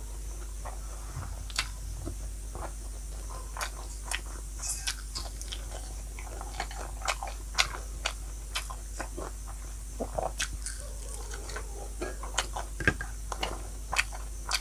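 Close-miked eating: irregular crunching and chewing of food, with sharp crunches scattered through, two of them louder, about 7.5 and 13 seconds in.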